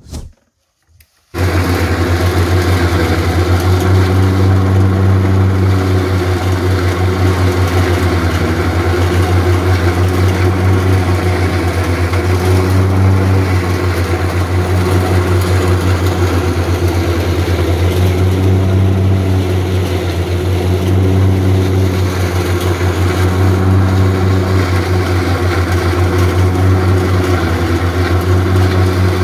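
Valmet 128 tractor's diesel engine running steadily at working speed, driving a PTO forage chopper that is being fed corn stalks for silage; it starts abruptly about a second in.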